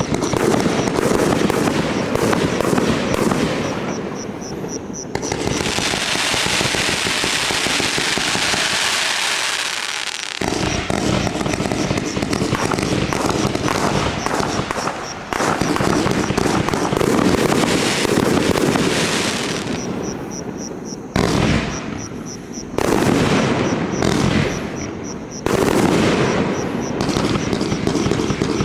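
A 126-shot compound fireworks cake firing continuously in rapid volleys of shots. A stretch of high hissing crackle runs from about five to ten seconds in, and the barrage dips briefly a few times before picking up again.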